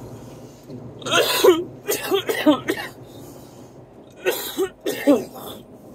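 A man coughing into his fist in two fits: several quick coughs starting about a second in, then three more near the end.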